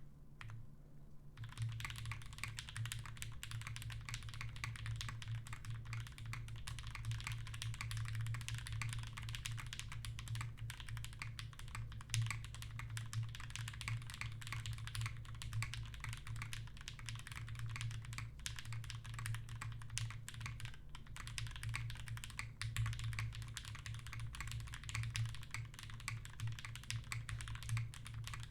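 Fast, continuous typing on a Dimple+ custom mechanical keyboard with lubed and filmed Black Cherry Magic Soda switches on Durock 62 g springs, Cherry stabilizers and GMK keycaps: a dense stream of key strokes starting about a second in. A steady low hum sits underneath.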